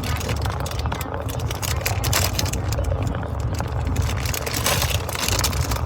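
Steady low rumble of road noise inside a car's cabin, with scattered small clicks and rustles from handling over it.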